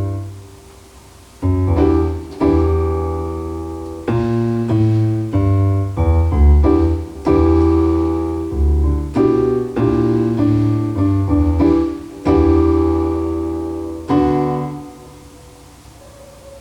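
Piano music: slow chords, each struck and left to ring and die away, about a dozen in all, fading out near the end.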